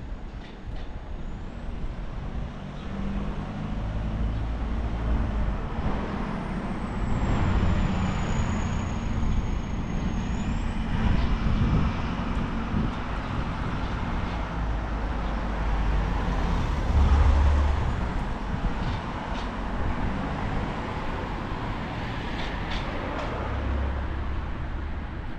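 Road traffic on a city street: motor vehicles passing with a low rumble that swells several times. Near the middle a high whine slides down in pitch, holds for a few seconds, then stops.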